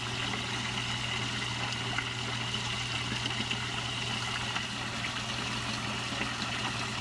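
Water running steadily in an aquaponics fish tank, an even trickling with a steady low hum underneath.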